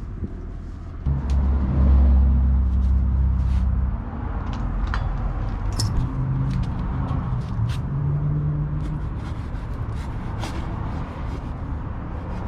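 A motor vehicle's engine rumbling nearby. It starts abruptly about a second in, is loudest for the next few seconds, then carries on more softly, with scattered light clicks over it.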